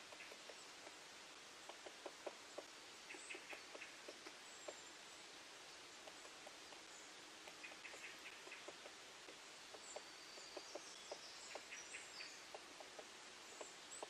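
Faint ambience: scattered soft clicks, with a few short runs of quick high chirps that come back every few seconds.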